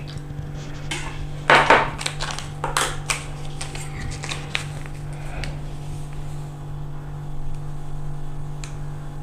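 Kitchen utensils handled on a counter: a spoon and containers clinking and knocking a few times, loudest about a second and a half in, over a steady low hum.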